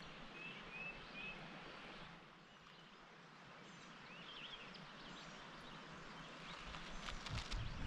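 Faint creekside ambience: a steady hiss of flowing water with a few short bird chirps, and footsteps on rocks near the end.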